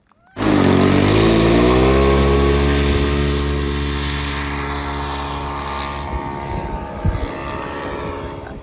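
Radio-controlled model aircraft's propeller engine running with a steady pitch, cutting in suddenly about half a second in and slowly fading through the rest.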